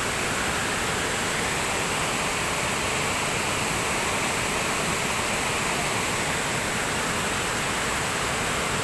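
Waterfall rushing, a steady roar of falling water.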